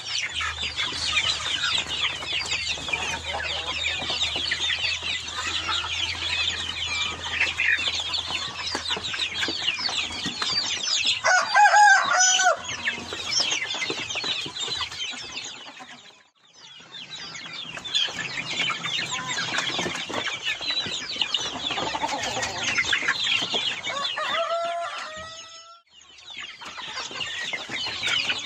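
A flock of young chickens calling as they feed: dense, overlapping high chirps and clucks, with one louder, lower call about twelve seconds in. The sound drops out briefly twice, a little past halfway and near the end.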